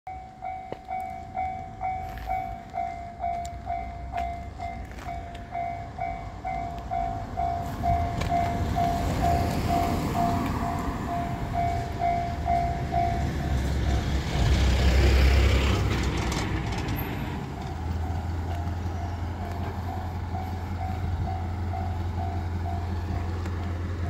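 Japanese level-crossing alarm ringing its two-tone electronic bell about twice a second while a train passes; the rumble and rush of the train build to their loudest about fifteen seconds in and then ease, with the alarm fainter afterwards.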